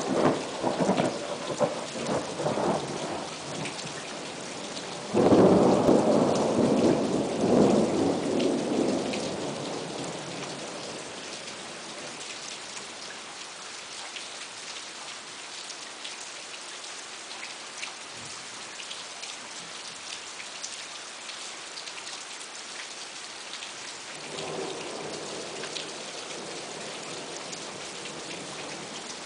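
Thunderstorm: steady heavy rain with rolling thunder. Rumbles at the start, then a loud clap about five seconds in that rolls away over several seconds, and a softer rumble near the end.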